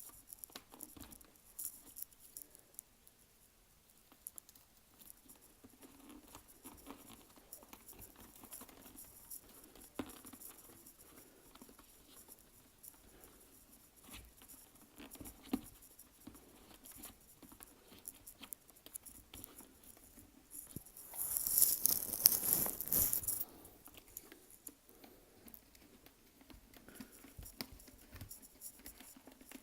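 Faint scattered clicks and rustles of hands working inside a full-face motorcycle helmet, tucking headset wires and handling the padded liner. About three-quarters of the way through comes a louder scraping rustle lasting about two seconds.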